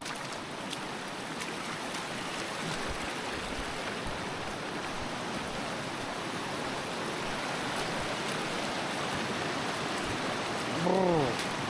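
River water rushing steadily over a rocky bed, close by. A short voiced exclamation comes near the end.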